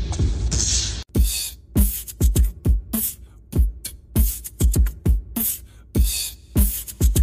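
Background music with a steady electronic hip-hop beat: deep kick drums with short snappy hits between them. The track changes abruptly about a second in.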